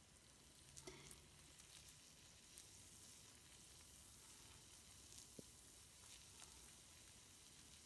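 Faint fizzing crackle of a Lush 'Ectoplasm' jelly bath bomb held in a wet hand in bathwater, with a few tiny clicks. It is barely fizzing: its hard centre is still wrapped in the jelly coating.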